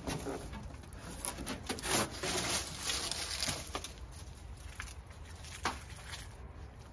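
Rustling and scraping of a twin-wall polycarbonate greenhouse roof panel being handled and slid along the roof frame, with a few sharp knocks.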